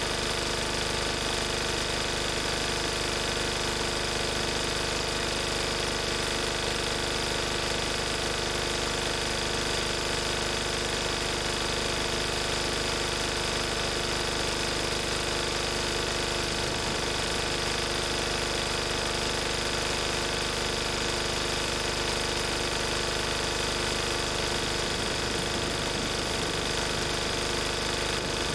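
1994 Lister Petter AD1 single-cylinder air-cooled diesel engine running steadily at its governed 3000 rpm, driving a 5 kVA Markon alternator.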